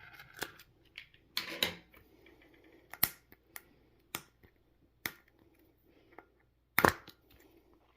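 Handling and opening of a Pokéball-shaped Pokémon card container: a series of sharp clicks and brief scrapes, with the loudest clicks about three seconds in and near the end.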